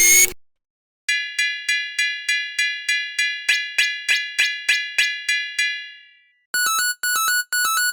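Railroad crossing warning bell ringing its 'kan kan' alarm, evenly spaced ringing strikes at about four a second for several seconds, then dying away. A falling sound effect cuts off at the very start, and short bright electronic melody notes begin near the end.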